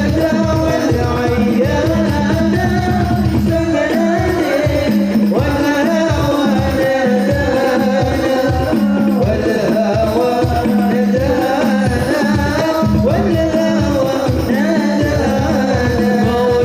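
Sholawat music: a voice singing a wavering, drawn-out melody over quick hadrah hand-drum strokes.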